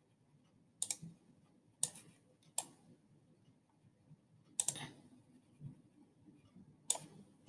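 Five sharp clicks of a computer mouse button, irregularly spaced, as strokes are made in a painting program.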